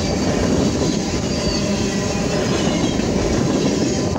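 Freight train tank cars rolling past close by: steel wheels running on the rails in a loud, steady rumble.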